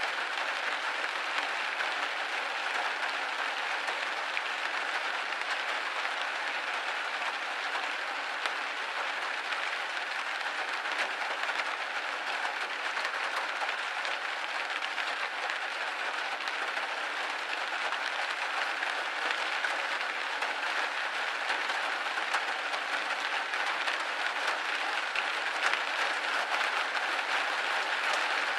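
Steady rain pattering against window glass: a dense, even hiss of countless small drops.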